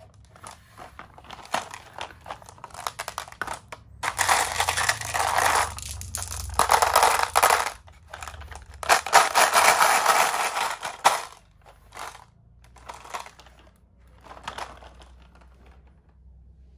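Many glass marbles rattling and clattering against each other and the plastic tipper bed of a toy dump truck as it is tipped by hand, in three long loud bursts in the middle with lighter rattles before and after.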